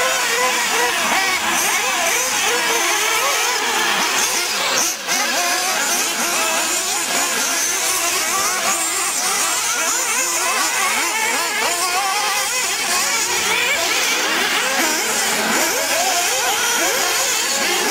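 A pack of 1/8-scale nitro RC buggies racing, their small glow-fuel two-stroke engines making many high whines that rise and fall over one another as the cars accelerate and brake through the corners.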